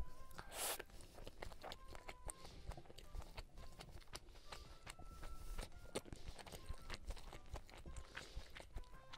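Close-miked chewing of a mouthful of street-snack food: faint, irregular soft wet mouth clicks and smacks.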